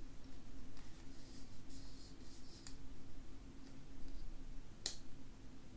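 Hands handling over-ear wireless headphones: a few faint rustles, then a single sharp click of a button pressed on the earcup about five seconds in, over a steady low hum.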